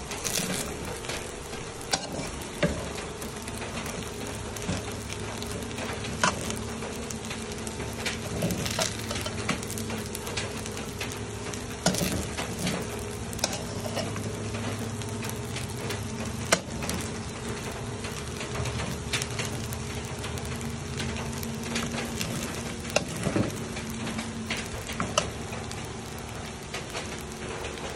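Fried rice sizzling in an aluminium wok while a metal spatula stirs, tosses and scrapes it, with scattered clicks of the spatula against the pan over a steady low hum.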